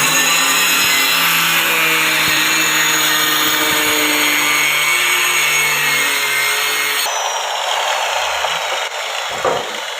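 Electric woodworking power tool running loud and steady, with a hum that drops out about seven seconds in while the high hiss carries on.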